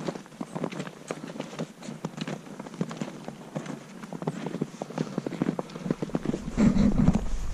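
Hikers' footsteps crunching on packed snow with trekking poles tapping, a quick irregular run of crunches and clicks from boots fitted with crampons. A louder low rumble comes in near the end.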